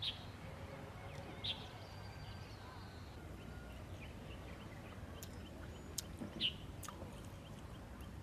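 Quiet outdoor ambience with a low steady rumble, broken by a few short, high bird chirps, three of them, and a few faint clicks.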